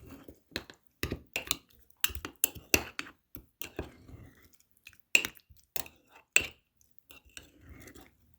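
A spoon stirring a thick mixture of grated garlic, ginger, apple cider vinegar and honey in a jar, clinking against the sides in irregular taps, with soft wet stirring sounds between them.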